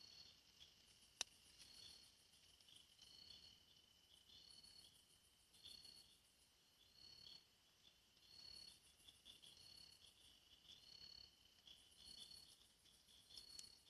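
Faint insect chorus: short high chirps about once a second over a steady high buzz, with pulsed trills coming and going every few seconds. A single sharp click about a second in.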